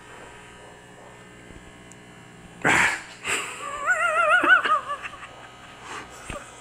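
A kitten hisses sharply about two and a half seconds in, followed by a wavering, warbling cry lasting about a second and a half.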